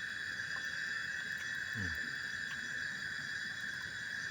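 Steady, unbroken high-pitched chorus of forest insects, with one short, low, falling murmur of a man's voice about two seconds in.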